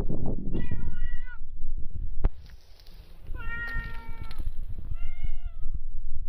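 Cat meowing three times, each meow a drawn-out call just under a second long, with steady low rumbling handling noise underneath.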